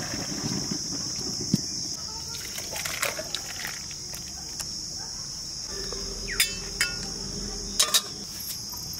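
Crickets chirring steadily in the background while a curry is tipped from a metal kadai into a steel bowl. Scrapes and a few sharp clinks of ladle and pan, two of them close together near the end.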